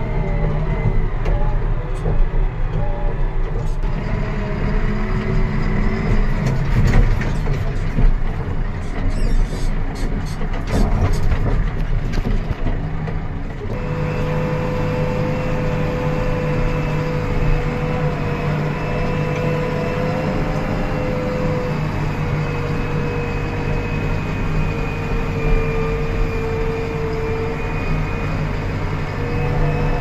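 Heavy diesel vehicle heard from inside its cab while driving over a rough dirt haul road, the engine drone mixed with cab rattles and knocks. About 14 seconds in the sound changes abruptly to a steadier engine drone with a high whine, heard from inside a backhoe loader's cab.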